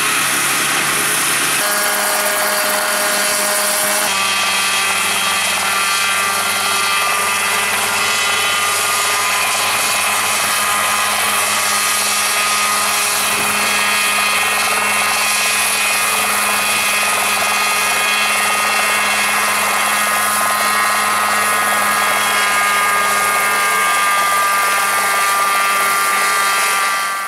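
Composite FX Mosquito ultralight helicopter running: its two-stroke engine and rotor make a loud, steady pitched buzz. The tone changes abruptly about two and four seconds in, and the pitch sags slightly near the end.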